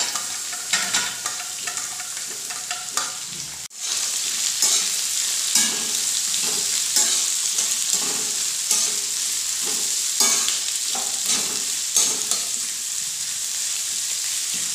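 Sliced onions sizzling in hot mustard oil in a kadhai, with a metal spatula scraping and knocking against the pan as they are stirred. The sound drops out for a moment about four seconds in.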